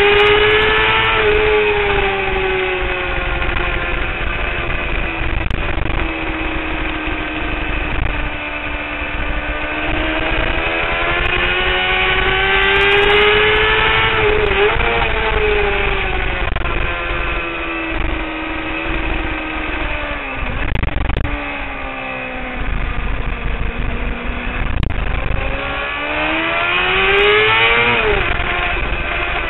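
Honda CBR600RR inline-four engine running hard at high revs under a strong rush of wind. Its note climbs and falls with the throttle, with sharp drops in pitch about 14 seconds in and again near the end.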